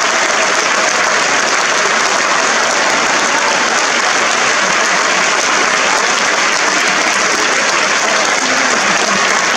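Theatre audience and cast applauding: dense, steady clapping that holds at one level throughout.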